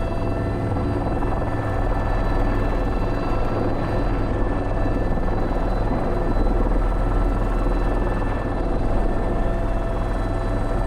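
Airbus H125 helicopter in flight heard from the cockpit: the steady drone of the rotor with the high, steady whine of its single turboshaft engine.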